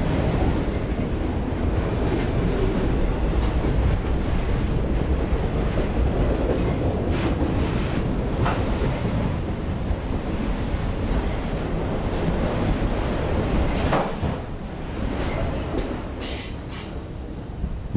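Freight train of autorack cars passing close at speed: a loud steady rumble of wheels on rail with a thin high squeal and a few clacks. About fourteen seconds in, the last car goes by and the sound drops away to a fading rumble.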